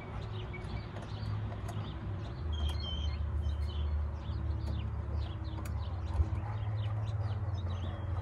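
Small birds chirping over a steady low rumble, with a single sharp click about six seconds in.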